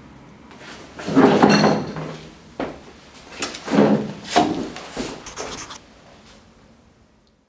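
A run of scrapes, rubs and knocks on wood, coming in several separate bursts that die away near the end.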